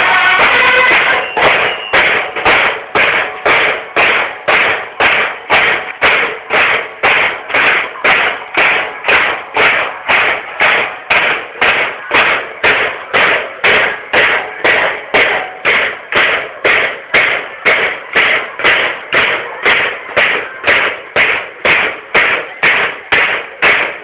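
Banda de guerra field snare drums struck together in a steady marching beat, about two sharp strokes a second. A held bugle call ends about a second in.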